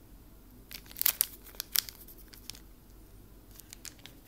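Thin clear plastic packaging crinkling as it is handled. A cluster of sharp crackles runs for about two seconds, followed by a few softer ticks near the end.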